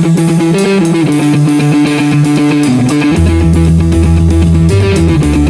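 Rock band playing an instrumental passage: electric guitars holding notes over steady drums. The low bass end drops out, then comes back in about three seconds in.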